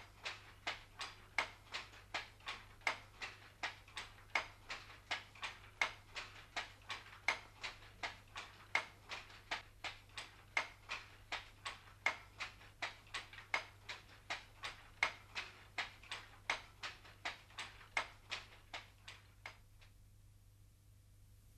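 Wooden handloom at work: a steady rhythmic clacking, about two to three knocks a second, which stops about two seconds before the end.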